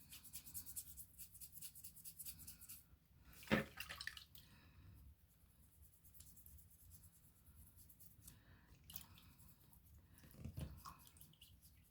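Faint handling sounds of a pocket Swiss Army knife being cleaned in a sink of soapy water: light rapid ticks and small water sounds, with a sharp knock about three and a half seconds in and a softer one about ten and a half seconds in.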